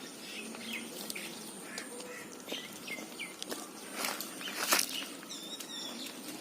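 Small birds chirping in short, scattered calls, with a few brief knocks and rustles.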